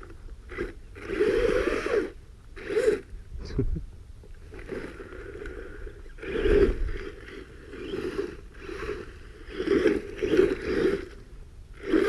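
Redcat Volcano EPX Pro RC truck's brushless motor revving in repeated short throttle bursts, its Pro-Line Dirt Paws tyres spinning and scraping in soft soil as it tries to get unstuck.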